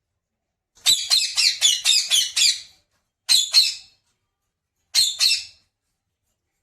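Pet parrot squawking: a rapid string of about eight shrill calls, then two more, then a short burst of about three near the end.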